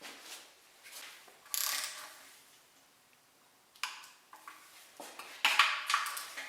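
Metal hand tools and engine parts clinking and clattering in short, separate bursts, with quiet gaps between them, during work on a 2JZ engine's lower oil pan.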